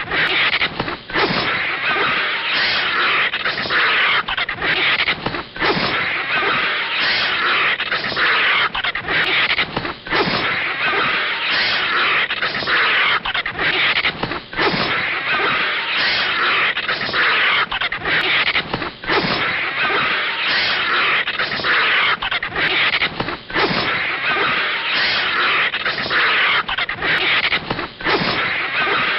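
Cartoon sound effects of an animal fight: a snake's harsh hissing mixed with a vulture's screeches and wing flaps, a near-continuous rough noise broken by brief gaps every second or two.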